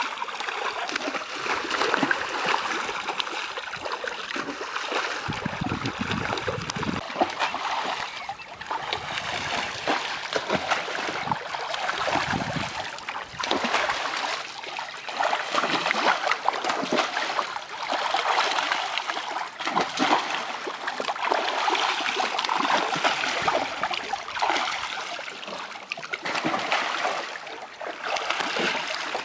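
Live rainbow trout thrashing and splashing at the surface of a crowded net cage while long-handled dip nets scoop them out, water splashing and running off the nets without a break, swelling and easing every few seconds.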